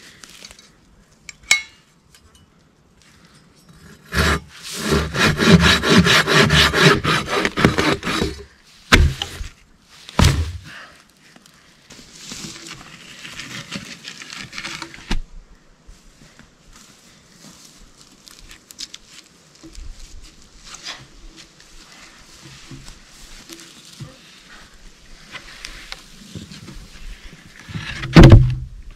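Hand saw cutting through a dry, barkless log in quick back-and-forth strokes for about four seconds, followed by two sharp wooden knocks. Near the end comes a heavy thud as a log is dropped on the dugout pit.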